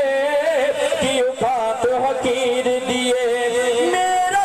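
A man singing a Punjabi naat into a hand-held microphone, his voice bending and wavering in long held notes over a steady beat.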